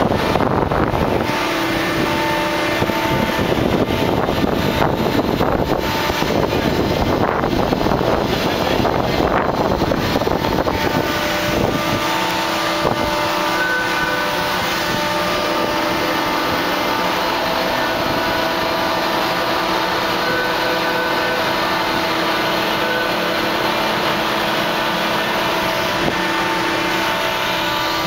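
Steady drone of ship's deck machinery, with faint steady whining tones that come and go. Wind buffets the microphone for roughly the first ten seconds, then eases.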